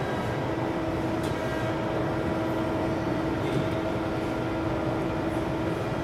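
Hydraulic press brake's oil pump and motor running, a steady hum with a held mid-pitched tone and a fainter overtone above it.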